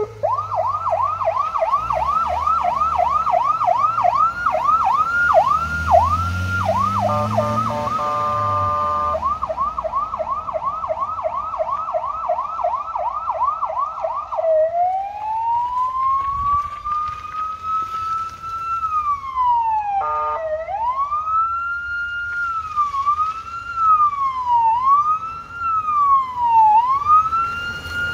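PA300 Silverface electronic police siren on a car, cycling through its tones: a fast yelp, broken by a short stepped two-tone burst about eight seconds in, then a slow wail rising and falling from about fourteen seconds, and a quicker wail near the end. The car's engine is heard revving underneath during the first several seconds.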